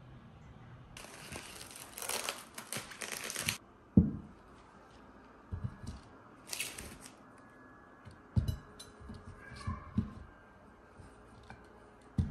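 A crinkling rustle for about two and a half seconds, then a sharp thump, a second short rustle and several soft knocks as a bunch of bananas is handled and set into a glass fruit bowl on a cloth-covered table.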